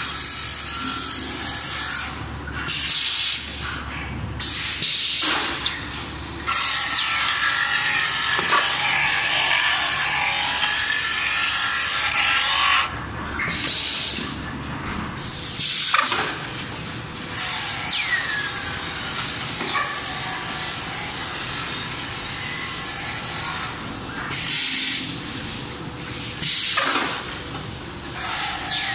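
Automatic melamine dinnerware polishing machine at work, its polishing wheels grinding the edges of melamine trays with a harsh, hissing rub that swells and drops in stretches, some several seconds long. A few short falling whines come through.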